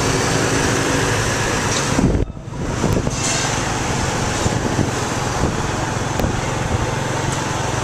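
Motorbike engine running steadily under a rush of wind and road noise, heard while riding on the bike through city traffic. The sound dips sharply for a moment about two seconds in.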